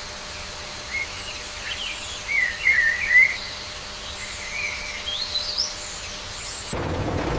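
Birds chirping, a string of short calls over a steady background hiss. Near the end the sound cuts abruptly to a louder, steady, wide noise.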